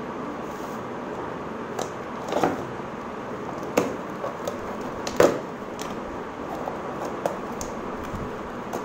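Taped cardboard parcel being torn open by hand: a handful of sharp rips and crackles as the taped flaps are pulled apart, the loudest about five seconds in, over a steady background hum.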